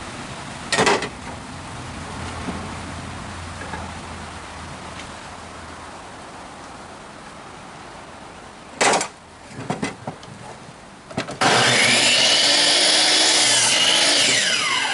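Hitachi miter saw cutting a 2x4: a couple of sharp knocks as the board is handled, then about three seconds from the end the saw motor starts, runs loudly through the cut, and winds down with a falling whine.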